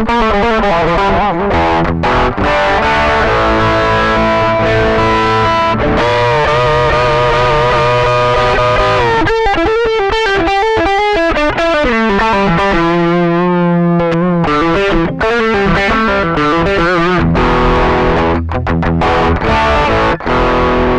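Electric guitar played through overdrive distortion, a continuous passage of picked notes and chords, with a held note shaken with vibrato about two thirds of the way through.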